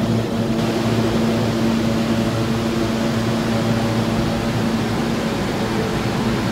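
Steady mechanical hum of a New York City subway train, with a constant low tone.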